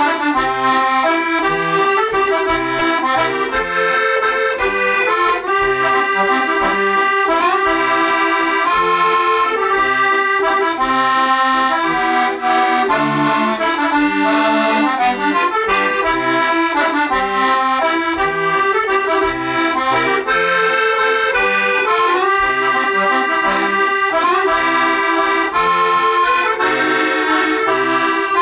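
Piano accordion played solo: an old-time Scottish waltz, a sustained melody and chords over regularly repeating bass notes.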